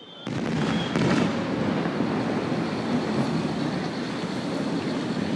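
Steady outdoor festival crowd ambience, a general murmur of people and activity, with a sharp click about a second in.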